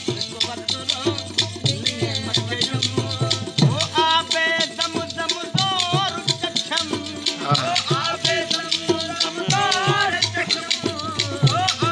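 Sindhi Sufi folk song: a man singing with long, bending melismatic lines over a harmonium, with a fast, steady clicking rattle keeping the beat.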